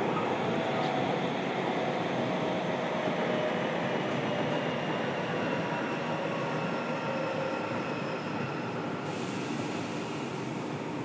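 Running sound inside a motor car of a JR Kyushu 303 series electric train: a steady rumble of wheels on rail with faint whining tones from its Toyo IGBT inverter drive, some slowly falling in pitch. A hiss joins about nine seconds in.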